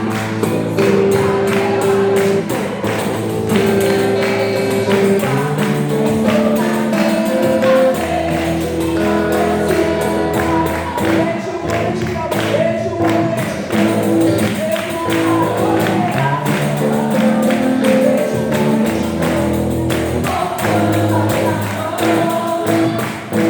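Gospel worship music with a steady beat, a tambourine keeping time and singing.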